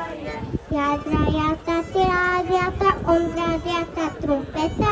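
A child singing a melody in held notes that step up and down in pitch.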